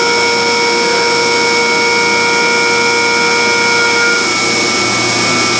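Fadal VMC 3016 FX CNC vertical machining center running a milling cut: a loud, steady machine noise with several constant whining tones from the spindle and cutter. The whine changes slightly about four seconds in, as some of the tones drop out.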